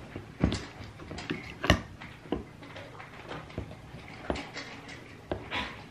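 Hand can opener working on a can of pumpkin purée: a series of irregular sharp metal clicks and knocks as it struggles to cut the lid, an opener that is doing the job badly.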